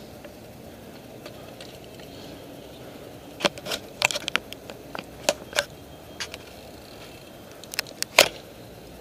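A run of irregular sharp clicks and knocks, about a dozen, starting a few seconds in and loudest near the end, over a steady low background noise.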